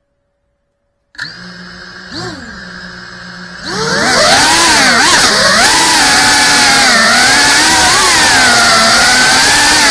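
GEPRC Cinelog 35 cinewhoop FPV drone's brushless motors and propellers: the motors start spinning at idle about a second in, then throttle up sharply for takeoff nearly four seconds in and run loud, their whine rising and falling in pitch with the throttle as it flies.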